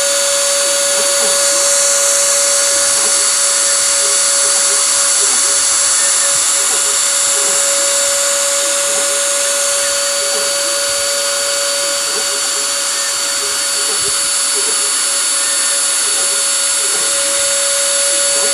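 Small CNC machine running steadily: a constant high motor whine over an even hiss, with no change in pitch or level.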